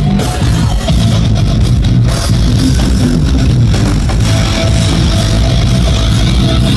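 Loud rock music with guitar and drums, playing steadily.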